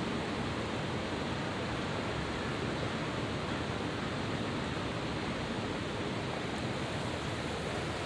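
Steady, even rushing noise with no distinct events, outdoor ambience such as running water or distant city hum.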